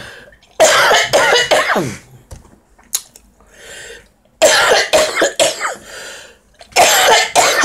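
A woman coughing into her fist: three loud bouts of coughing and throat clearing, each ending in a falling voiced sound. She puts it down to having a little cold.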